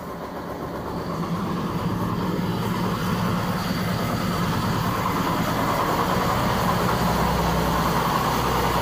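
A small stationary engine running steadily, its hum growing louder toward the end.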